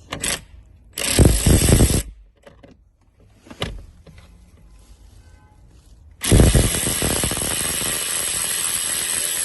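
Handheld power tool running in two bursts, a short one about a second in and a longer steady run of about three seconds near the end that cuts off sharply, as it backs out the small retaining bolts of the ignition switch.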